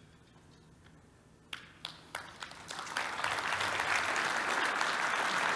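Audience applause: a few scattered claps about a second and a half in, swelling into steady applause from about three seconds in.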